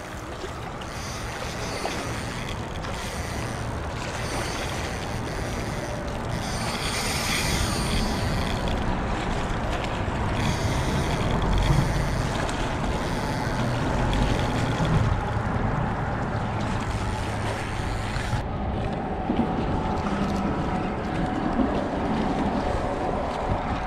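Wind buffeting the microphone over small waves washing against a rocky shoreline: a continuous rushing noise with a low rumble, whose high hiss drops away suddenly about three-quarters of the way through.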